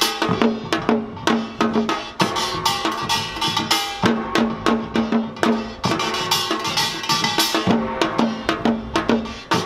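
Korean samulnori percussion ensemble playing a fast, driving rhythm. Janggu hourglass drums and the clanging kkwaenggwari small gong strike densely, and the jing gong rings out about every two seconds.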